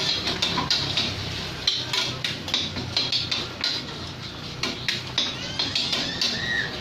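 Metal cooking utensils clinking and scraping against pans in irregular, quick strikes while fried rice is being cooked, over a low steady hum.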